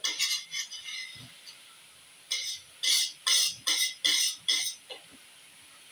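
A utensil scraping and stirring in a frying pan of carbonara sauce: a run of strokes at the start, then after a short pause a quick series of scrapes, about three a second.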